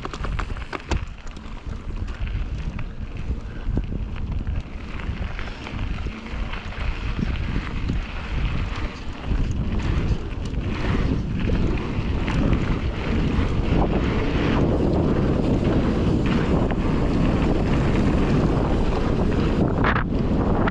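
Wind buffeting the microphone over the rumble of a Fezzari La Sal Peak mountain bike's tyres rolling fast down a dirt trail. Sharp clicks and rattles of the bike come through in the first ten seconds, then the wind rush grows louder and stays steady as speed builds.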